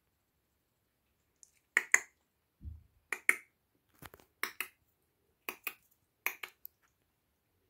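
Sharp clicks in quick pairs, about six groups over five seconds, made to catch kittens' attention; a soft low bump among them about a third of the way in.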